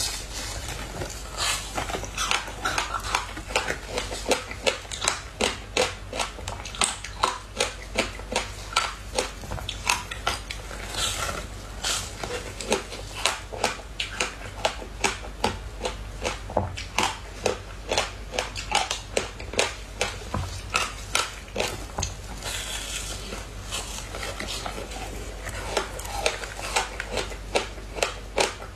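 Crunching bites into a frozen sheet of passion fruit pulp and seeds, then chewing, with sharp crackling crunches about two or three a second.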